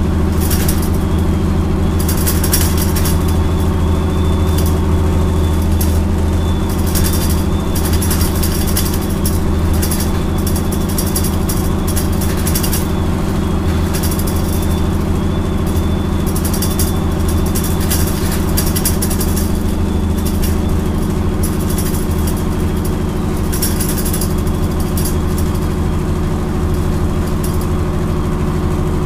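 Bristol LH single-deck bus engine running steadily under way, heard from inside the saloon, with intermittent high rattles.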